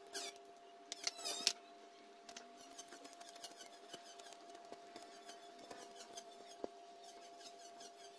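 A thin bamboo strip being scraped and shaved with a hand blade: a few sharp strokes in the first second and a half, then a run of lighter, quicker scratching strokes. A faint steady hum runs underneath.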